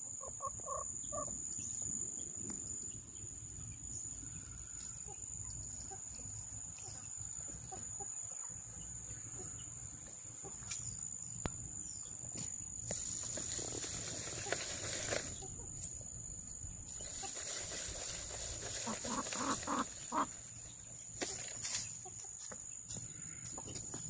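Backyard chickens clucking in short runs of notes, near the start and again about two-thirds of the way through, amid rustling and crackling of dry leaf litter.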